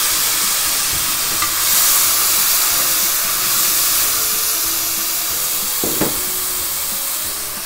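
Shallots and diced fresh tomato sizzling in hot oil in a frying pan, a steady hiss.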